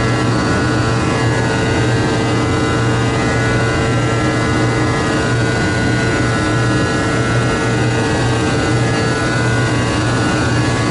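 Steady flight-deck noise inside a Boeing 777: a constant rush of airflow and jet-engine hum, with a strong low drone and a few steady tones, unchanging throughout.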